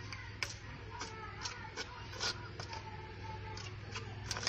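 A steel spoon clinking and scraping against a steel bowl while ragi flour is mixed by hand: irregular light clicks a few times a second, over a steady low hum.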